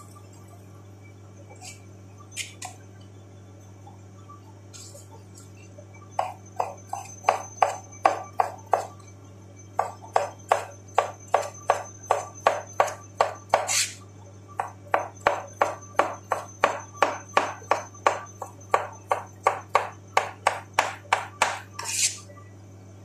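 Chef's knife chopping cucumber into small dice on a cutting board: quick, even strokes about three a second, starting about six seconds in, with a short pause midway. A steady low hum runs underneath.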